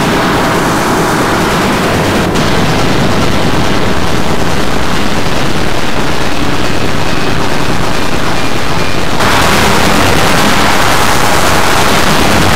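Loud, dense mix of distorted, noise-like synthesized sound loops layered on top of one another, harsh and without a clear tune. A brighter, hissier layer joins about nine seconds in.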